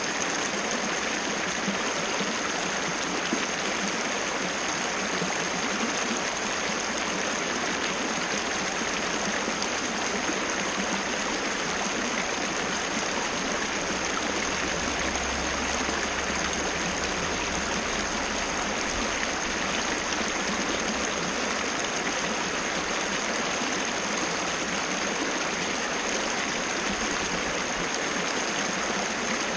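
Waterfall splashing steadily: a continuous, even rush of falling water.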